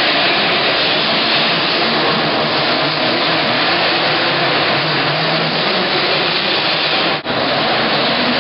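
50cc two-stroke mini motocross bike engines buzzing steadily as one dense drone, with a brief break about seven seconds in.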